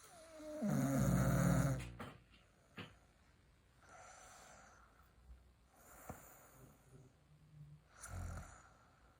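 A person snoring: one loud, drawn-out snore with a wavering pitch in the first two seconds, then quieter breaths and a short low snore near the end.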